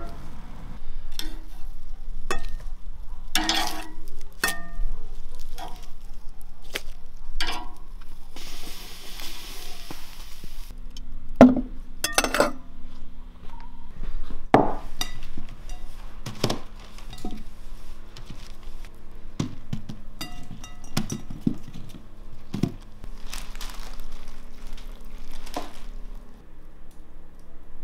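Kitchen handling: a string of separate knocks, taps and clinks as dishes and food are set down on a paper-covered table, with a brief rustle about eight seconds in.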